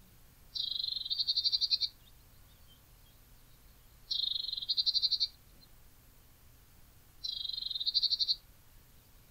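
A small songbird calls three times, about three seconds apart: each call is a high, buzzy note running straight into a fast trill, a little over a second long.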